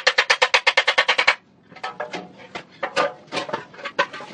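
Hammer beating a Vespa PX's steel body panel: a fast, even run of ringing strikes, about eight a second, that stops after about a second, then lighter, irregular taps.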